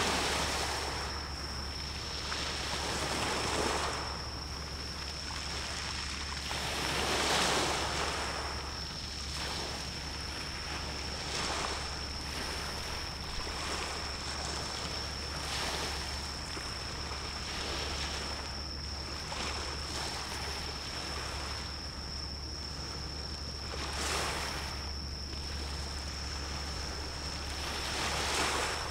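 Sea waves washing in, swelling and fading every few seconds, over a steady low hum and a thin, steady high-pitched tone.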